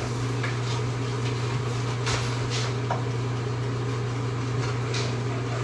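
Steady low hum of a running kitchen appliance, with a few faint light clicks.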